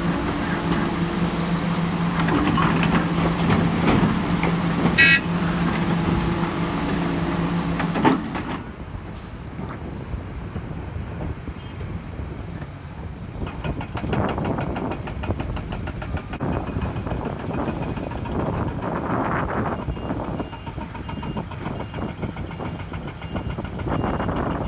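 Heavy excavator diesel engine running with a steady hum. About a third of the way in the sound changes abruptly to a quieter, uneven rumble that swells and falls. Near the end there is a faint repeated beeping.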